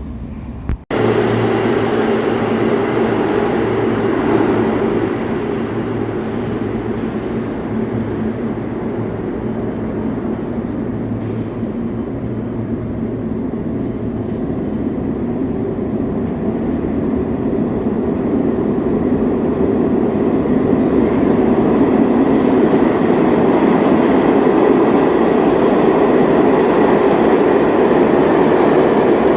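New York City subway train running, a steady rumble and rush of wheels on rail that grows louder over the second half. It starts abruptly after a brief cut about a second in.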